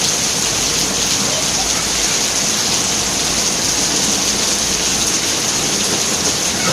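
Heavy rain falling and pattering on surfaces: a steady, unbroken hiss.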